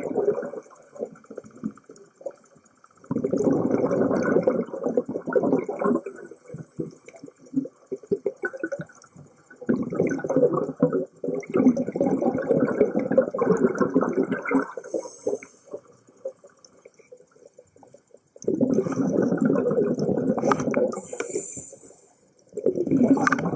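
Scuba diver's exhaled bubbles rumbling out of the regulator, heard underwater, in long bursts of a few seconds each with quieter pauses between while the diver breathes in.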